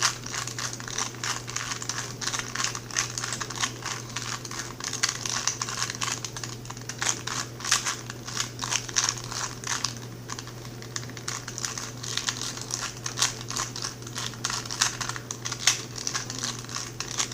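A 2x2 Rubik's cube being turned fast in a speedsolve: a continuous stream of quick plastic clicks and clacks as the layers are twisted.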